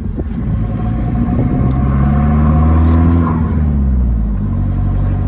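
Holden Colorado ute's engine and exhaust revving up under hard acceleration, heard from inside the cab, with its throttle controller set to its most responsive mode. The pitch climbs for about three seconds, then drops and settles into a steady drone.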